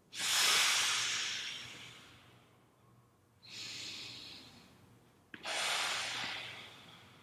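A man breathing deeply while he holds a stretch: three long, hissing breaths, the first the loudest, each fading out.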